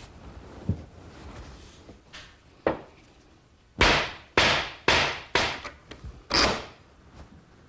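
Mallet knocking the glued mortise-and-tenon joints of a mesquite cabinet case together: a couple of lighter knocks, then a quick run of about six hard blows a little past halfway.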